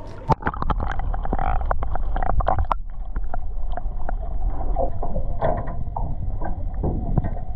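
Underwater sound heard through a submerged action camera: water moving around the housing as a muffled low rumble, with many small clicks and knocks scattered through it.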